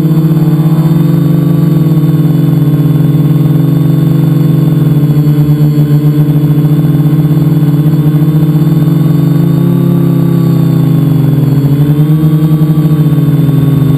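Multicopter's electric motors and propellers humming loudly at close range, one steady pitched drone whose pitch wavers as the throttle changes, dipping and rising again near the end.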